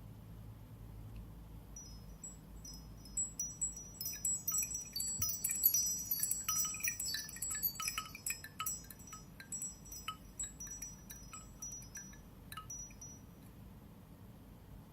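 Wind-chime-like ringtone playing from the Nokia Asha 300 phone's loudspeaker: many quick, high tinkling chime notes that begin about two seconds in, crowd together in the middle and thin out near the end.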